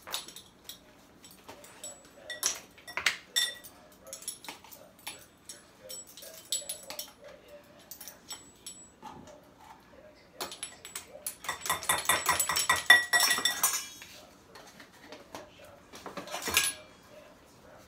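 Kitchen utensils clinking as baking powder is measured out: a measuring spoon tapping and scraping against its container and a bowl of flour. There are scattered light clinks, then a dense run of rapid metallic rattling about two-thirds of the way through, and one more clink near the end.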